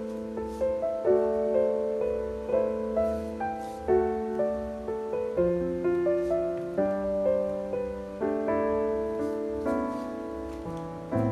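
Soft background piano music: a gentle melody over held chords.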